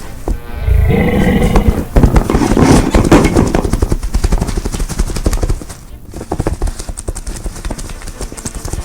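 Foley horse sound effects: hooves clip-clopping with a horse whinnying, loudest and densest for the first five seconds, then lighter hoofbeats.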